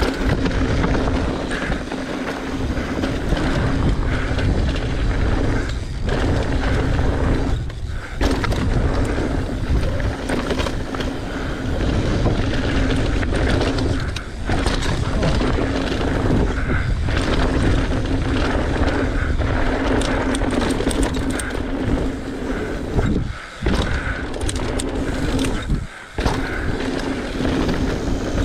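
Mountain bike descending fast on a dusty, rocky dirt trail: continuous tyre noise on dirt and gravel with wind on the microphone, and a few brief dips in the noise.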